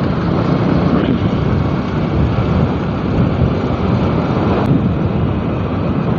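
Steady wind noise on the microphone and road noise from a vehicle moving along a road, an even rushing sound heaviest in the low end.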